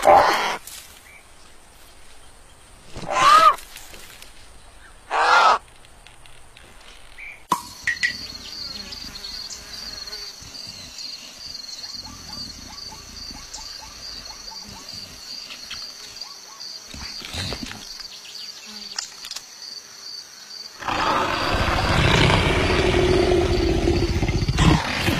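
Cartoon animal sound effects. The vulture gives two short squawks, then comes a steady, high, insect-like buzz of savanna ambience. Near the end the leopard gives a loud, rough cry as it rolls off the branch.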